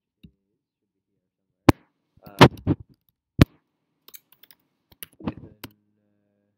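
Typing on a computer keyboard: a few single sharp keystrokes spaced apart, then a quicker run of key presses in the last part.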